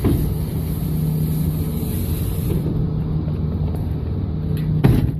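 A steady low motor rumble with a constant hum, and a single sharp knock near the end.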